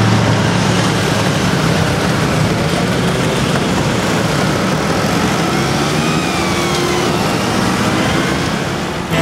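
Motor scooter engines running in a moving group ride, with a dense rush of wind and road noise over the microphone. A faint engine pitch slides up and down from about six seconds in.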